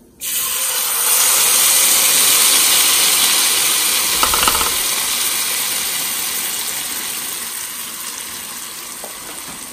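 Hot oil with tempered spices sizzling loudly as a yogurt kadhi mixture is poured into the pan. It starts suddenly and slowly dies down as the liquid cools the oil. This is the "really good sizzle" that shows the oil was hot enough.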